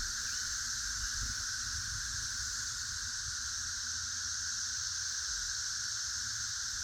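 Steady insect chorus: an unbroken hiss in several high bands, over a low, uneven rumble.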